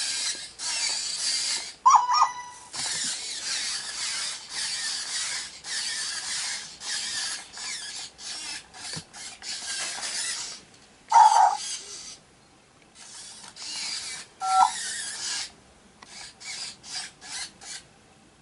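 WowWee Robopuppy robot dog's geared servo motors whirring in spurts as its legs move, choppier near the end. Three short electronic yips from the toy's speaker come about two, eleven and fourteen and a half seconds in, the loudest sounds here.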